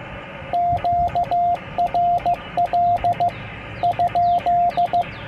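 Icom IC-703 transceiver's CW sidetone: a steady beep of about 700 Hz keyed in Morse code, four characters spelling "QRL?". This is the operator's query asking whether the frequency is in use before he transmits.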